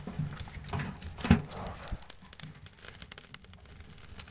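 Wood fire crackling in the open firebox of a Kni-co Alaskan woodstove on a bed of hot coals. A few knocks sound as something is moved in the firebox, the loudest about a second in, then fine crackling goes on.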